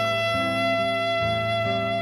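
Quiet trio jazz from a cassette recording: a saxophone holds one long note while guitar and keyboard notes change beneath it.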